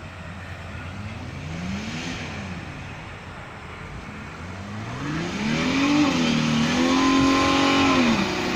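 Holden Commodore's engine revving for a burnout: a short rev up and back down about a second in, then a longer rev from about five seconds in that holds high for a couple of seconds before dropping near the end.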